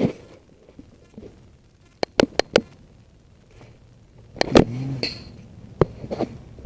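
Four quick sharp clicks about two seconds in, then a single louder sharp crack with a brief low ringing tail about four and a half seconds in, and one more click near the end.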